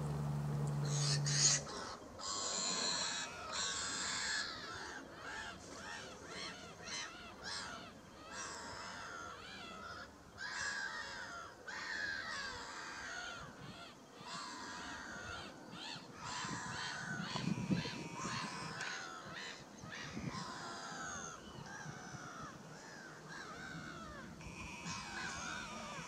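Birds calling: a dense, continuous run of short harsh calls, many of them sliding down in pitch. A low steady hum stops about a second and a half in.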